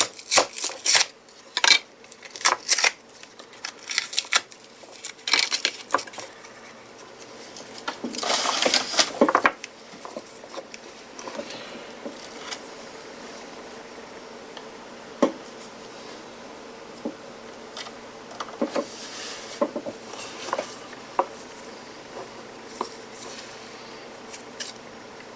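Nickel-cadmium battery cells and their metal connecting strips clinking and clattering as they are handled on a bench: dense clatter for the first ten seconds with a longer scraping rustle about eight seconds in, then only occasional single clicks.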